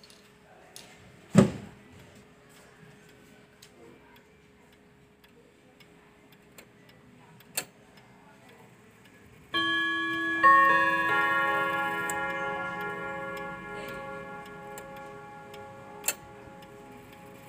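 ODO pendulum wall clock chiming on its steel chime rods: about ten seconds in the hammers strike, and several notes ring together and slowly die away. Before that there are a few sharp clicks and one knock.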